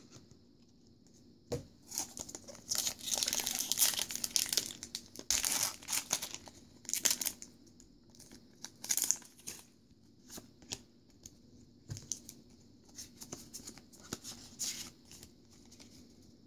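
A foil Pokémon card booster pack is torn open and its wrapper crinkled, in several bursts of tearing and rustling over the first half. After that come quieter, scattered rustles and light clicks of handling.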